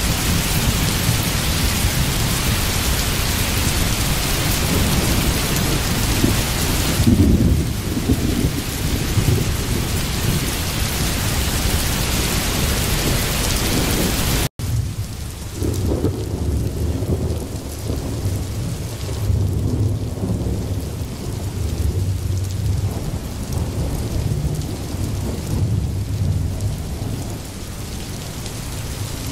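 Rain and thunder sound effect: a steady hiss of heavy rain with rolling thunder, loudest about seven seconds in. About halfway through it cuts out for an instant and goes on as a duller, deeper rumbling with much less hiss.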